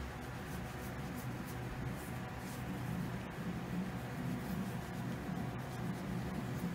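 Fingers rubbing and scratching a cat's head fur, a soft, steady low rustle.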